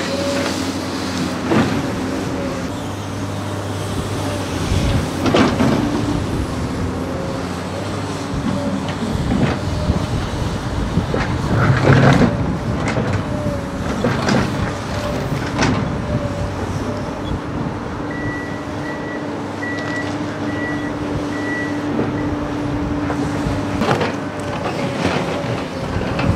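Tracked excavator's diesel engine running steadily as it digs, with the bucket knocking and clanking several times against soil and debris. A high electronic warning alarm beeps about twice a second for a few seconds in the second half.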